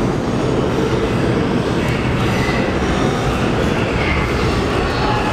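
New York City subway train pulling away on curved track: a steady rumble of wheels on rail, with a few brief faint wheel squeals.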